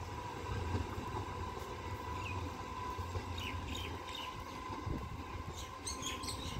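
Low, steady rumble of a MEMU electric multiple-unit passenger train running along the track away from the listener. Birds chirp several times past the middle.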